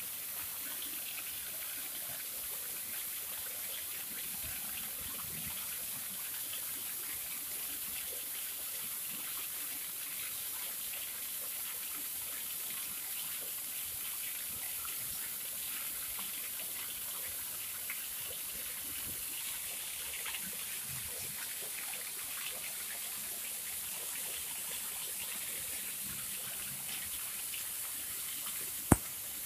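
Steady, even outdoor hiss, mostly high-pitched, with a single sharp click near the end.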